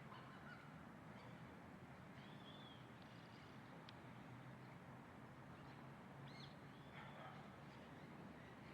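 Faint songbird calls: a few short, high, arched chirps spaced through the clip over a steady low background hiss.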